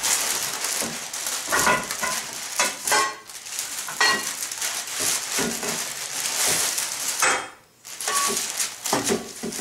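Plastic wrapping film rustling and crinkling as a bundle of aluminium V-slot extrusion rails is unwrapped, with light clinks of the bare aluminium rails knocking against each other. There is a brief pause near the end.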